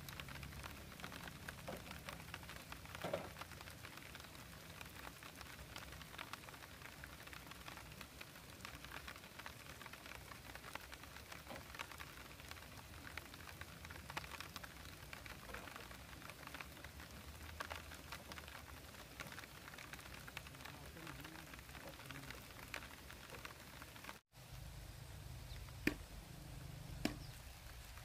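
A few sharp knocks of bamboo poles being handled and fitted, one about three seconds in and two near the end. Behind them runs a steady haze of faint light crackling.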